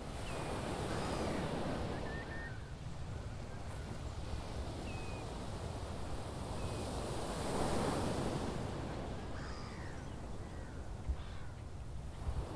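Salt-marsh and estuary ambience: a rushing wash over a low rumble, swelling about a second in and again around eight seconds. Over it come many short, high bird calls, thin chirps and clipped cries, scattered throughout.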